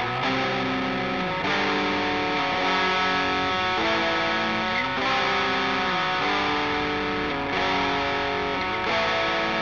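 Heavy metal music led by a loud, distorted electric guitar riff, its chords changing every second or so.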